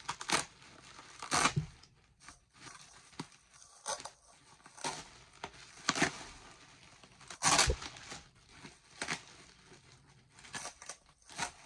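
Packaging being unwrapped by hand: irregular tearing and crinkling, with two louder rips, one about a second and a half in and one past the middle.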